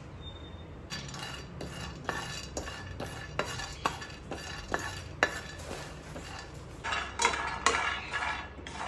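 Seeds and nuts being stirred in a dry, hot pan while they dry-roast, a utensil scraping and knocking against the pan about twice a second. The strokes start about a second in and grow quicker and louder near the end.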